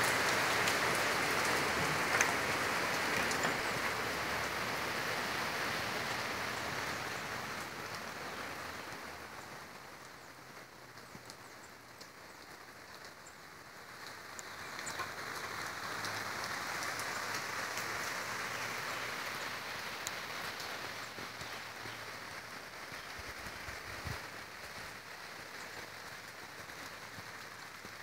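Steady rain falling, an even hiss that eases off about a third of the way through and swells again about halfway, with a few faint drip ticks.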